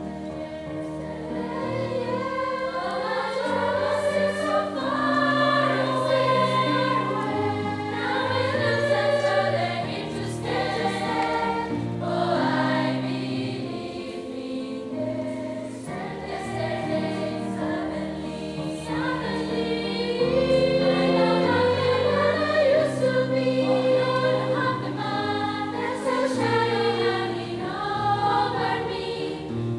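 Children's choir singing a piece in several voices over sustained low notes, growing louder and softer in two long swells.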